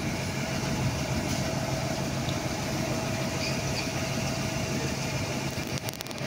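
2009 Orion VII NG hybrid-electric transit bus running close by: a steady low engine drone with a faint steady whine above it.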